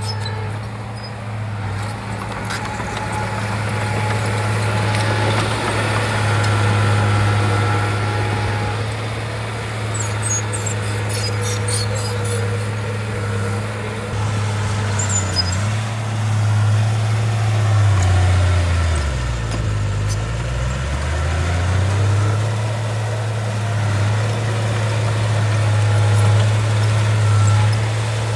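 Shantui bulldozer's diesel engine running steadily with a deep hum. Its engine speed sags and then climbs back about two-thirds of the way through. A short run of ticks comes about ten seconds in.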